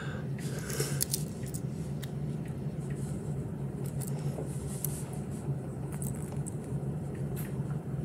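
Faint clicks and scrapes of the steel tools of a Victorinox Swiss Army knife being handled and pried open with a fingernail, over a steady low hum.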